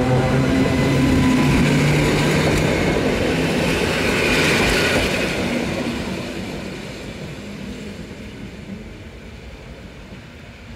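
EN57AL electric multiple unit pulling out of the station past the platform: a low steady hum and the rumble of wheels on the rails, loudest for the first few seconds, then fading steadily as the train moves off into the distance.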